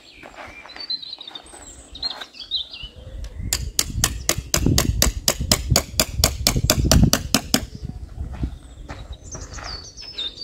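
A tent peg being hammered into firm ground: a quick, even run of about twenty hammer strikes, some five a second, lasting about four seconds. Birds chirp before and after the hammering.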